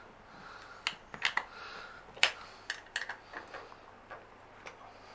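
Light metallic clicks and clinks, about a dozen at uneven intervals with the sharpest a little past two seconds in, as a chrome steel armrest bracket and its bolts are handled and fitted to the underside of an office chair seat.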